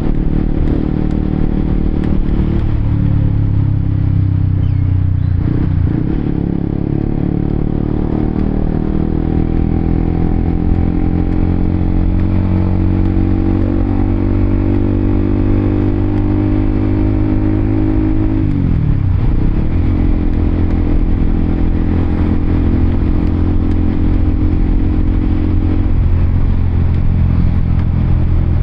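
Honda CBR1000RR-R Fireblade's inline-four engine running while riding at an easy pace. Its pitch eases down at first, drops sharply and comes back about a fifth of the way in and again about two-thirds of the way in, and otherwise holds steady.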